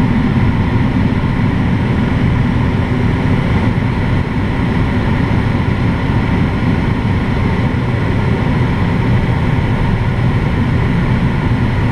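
Steady rush of airflow in the cockpit of a PW-6U glider on aerotow, a loud even noise with a low drone underneath that does not change.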